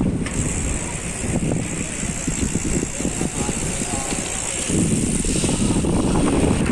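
Wind buffeting the microphone of a camera on a moving road bike riding in a pack of cyclists: a steady rumbling rush with a constant high hiss over it.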